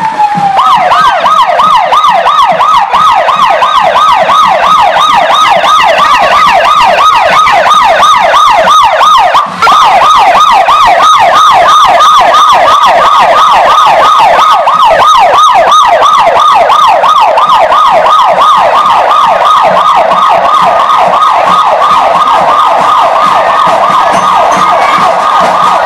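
Electronic siren in a rapid yelp, its pitch warbling up and down several times a second without a break.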